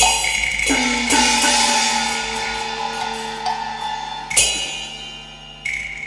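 Cantonese opera instrumental ensemble playing a percussion-led passage between sung lines: about five sharp strikes with bright ringing decays and held instrumental tones between them.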